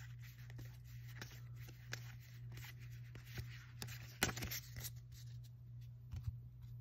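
Magic: The Gathering cards being thumbed through by hand: soft card-on-card slides and light clicks, a few louder ones a little past the middle, over a steady low hum.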